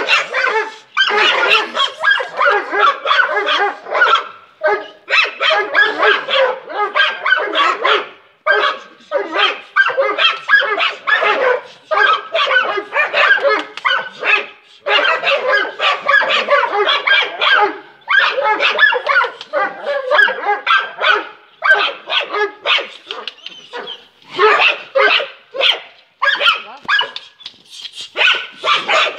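Dog barking in rapid, nearly unbroken volleys, with a few short pauses.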